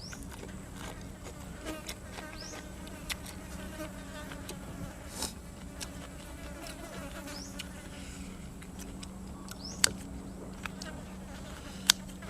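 A fly buzzing steadily close to the microphone, with a few sharp clicks, the loudest two near the end.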